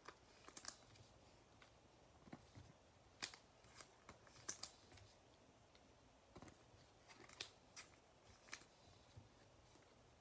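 Near silence with scattered faint clicks and light ticks of chromium trading cards being handled and set down on a playmat.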